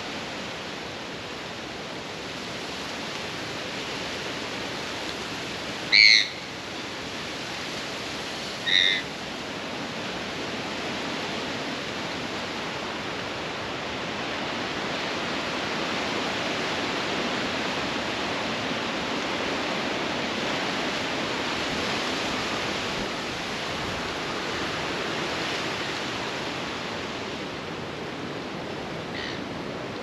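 Strong wind blowing, a steady rushing noise that grows somewhat louder through the middle. Twice, about six and nine seconds in, a bird gives a short, loud, high call.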